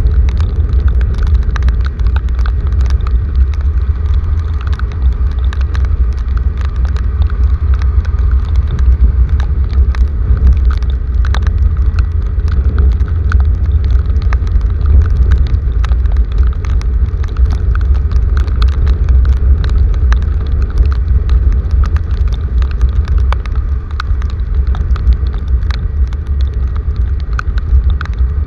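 Heavy rain falling, with many sharp drop impacts over a steady, deep rumble.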